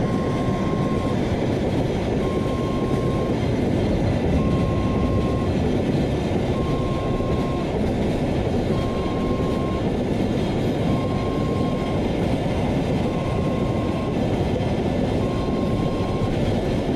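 A container freight train rolling steadily past a level crossing, its wheels running on the rails, while the crossing's electronic warning alarm sounds. The alarm alternates a lower tone, about a second long every two seconds, with a fainter higher tone.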